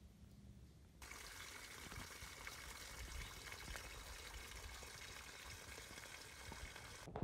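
A thin stream of spring water falling from a bank and splashing steadily. It sets in suddenly about a second in, after a faint quiet start.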